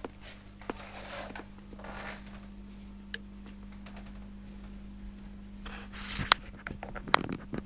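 Handling noise as the camera is moved about: soft rustling and scraping over a steady low hum, with two sharp clicks near the end.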